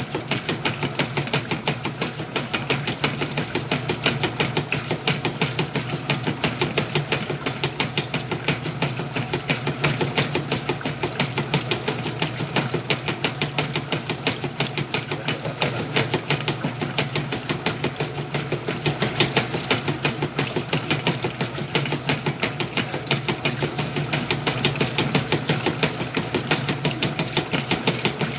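Whirlpool washing machine running a wash cycle with a load of sheets and pillowcases: a steady motor hum with a fast, even clicking or knocking at about five strokes a second.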